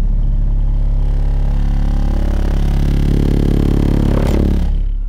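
35 Hz test tone played at high power through a 12-inch NVX VCW122 subwoofer in a sealed box with Earthquake Slaps M-12 passive radiators: a steady, very loud deep hum. Buzzing and rattling grow as the amplifier output climbs toward about 5,900 watts. A sharp click comes just before the tone drops off near the end.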